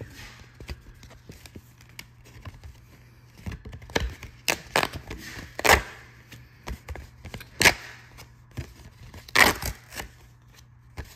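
Scratch-off lottery ticket card being torn apart along its perforations and handled: soft rustling of the folded strip with several sharp, crisp tears, the loudest about four and a half, six, eight and nine and a half seconds in.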